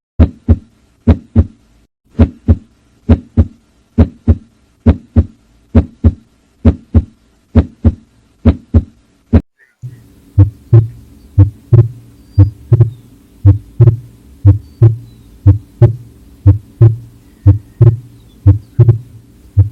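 A cow's heartbeat heard through a stethoscope over the left chest wall: steady paired lub-dub beats, roughly one a second. About halfway through, a steady low hum joins under the beats.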